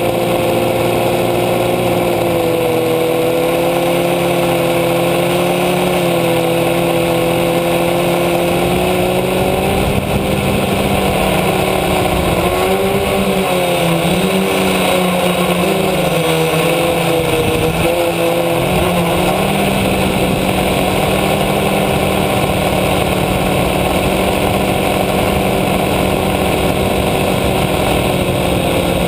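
Electric motors and propellers of an F450 quadcopter, heard from the GoPro on its frame: a steady hum made of several tones, which waver and shift in pitch for several seconds about halfway through as the motors change speed, then settle again.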